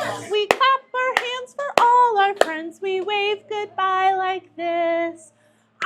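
A woman singing a slow children's song in held notes, with sharp hand claps scattered through it. It stops a little after five seconds in.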